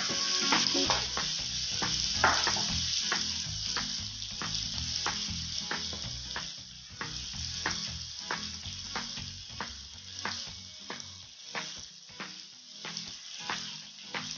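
Pork belly, sliced red onion and garlic sizzling in hot oil in a wok, stirred with a spatula for the first few seconds, then left frying with a steady sizzle and frequent crackling pops.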